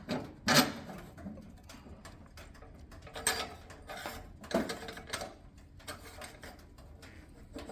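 Metal clanks and scrapes from the coal stove's door and air controls being shut and adjusted: a few separate knocks, the clearest about half a second in and two more a little past the middle.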